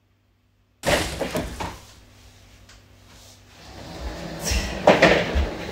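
A person moving about and settling into a swivel office chair on a wooden floor: a sudden clatter about a second in, then quieter shuffling, building to knocks and a few low thumps near the end.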